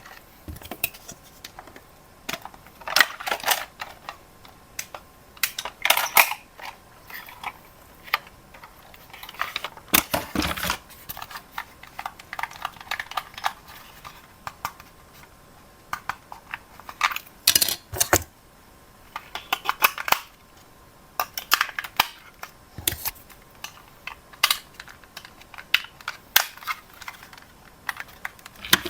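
Irregular clicks, taps and rattles of hard plastic toy parts and packaging being handled, in uneven bursts with short pauses between them.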